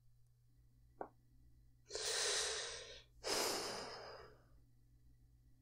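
A man's two long, heavy breaths, each about a second, a deep frustrated sigh, after a faint click about a second in.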